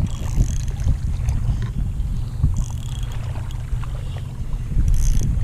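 Steady low wind rumble on the microphone, with faint intermittent clicks and hiss from a small Shimano Stradic Ci4 spinning reel as a hooked fish is played on an ultralight rod.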